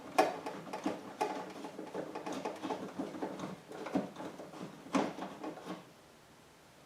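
Irregular small metal clicks and rattles of a socket wrench on a 10mm bolt inside a truck door as the bolt is worked loose, with a few sharper knocks, the loudest about five seconds in. The clicking stops near the end.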